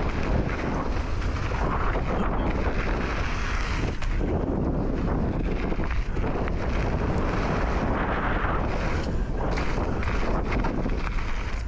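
Wind buffeting a camera microphone on a mountain bike at speed, a steady loud rush with a heavy low rumble from the bike rolling over the dirt trail.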